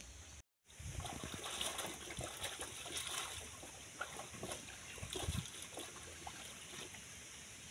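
Water splashing and trickling, with irregular small knocks.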